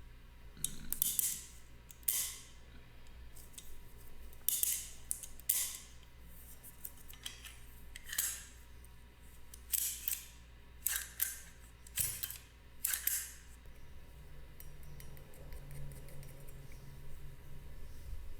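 A run of short, crisp hand-tool strokes, about a dozen with uneven gaps, mostly high-pitched, stopping about 13 seconds in. Afterwards only a faint low hum remains.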